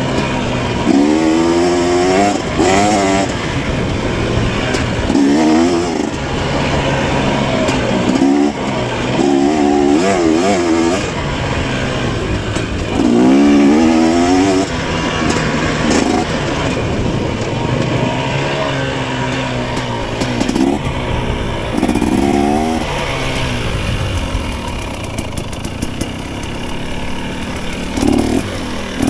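KTM 250 dirt bike engine revving up and dropping back again and again, as the throttle is worked on and off through a race course.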